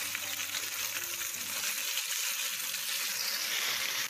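Sliced onions and tomatoes sizzling with tofu in a hot square nonstick frying pan while a spatula stirs them: a steady frying hiss.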